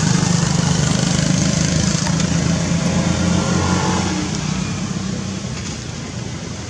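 An engine running steadily with a low hum, growing fainter after about five seconds.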